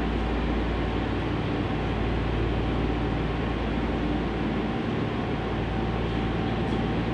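Higashiyama Line N1000 series subway train drawing slowly into the station, a steady rumble with a faint steady hum over it.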